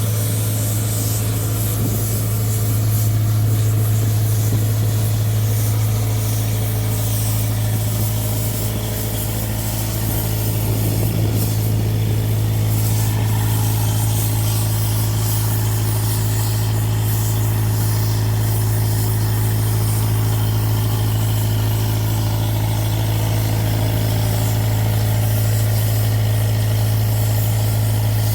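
Road roller's diesel engine running steadily, with a strong, steady low hum.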